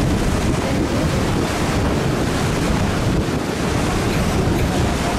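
Wind buffeting the microphone and water rushing past a moving boat on a lake, as one steady, unbroken noise.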